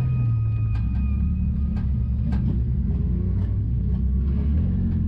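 Nissan enduro race car's engine running steadily, heard from inside the stripped cabin, with sharp clicks and rattles now and then.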